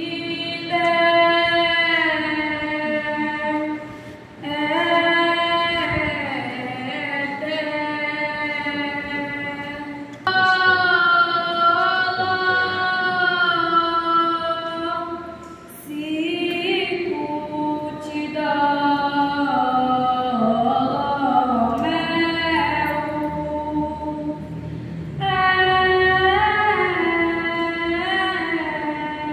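Unaccompanied female singing of a slow Passion lament: long, held notes in phrases of several seconds, with short breaths between them.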